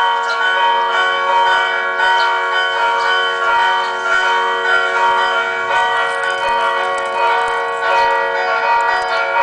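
Church bells ringing loudly and without a break, one stroke after another, each new strike sounding over the ring of the last.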